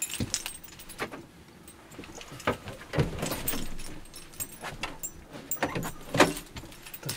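Keys jangling, with a string of clicks and clunks from the van's sliding side door handle and lock being worked from inside. The door will not open: it is stuck.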